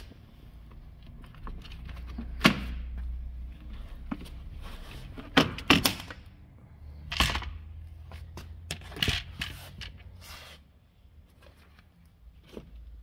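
Scattered sharp knocks and clunks over a low rumble, the loudest about two and a half seconds in and a pair just before six seconds, then fewer and quieter toward the end.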